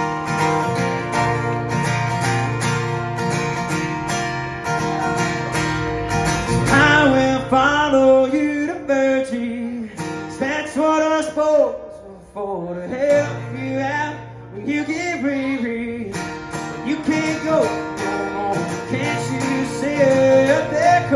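Live solo performance of a country song: an acoustic guitar strummed alone for about the first six seconds, then a man's singing voice comes in over it and carries on to the end.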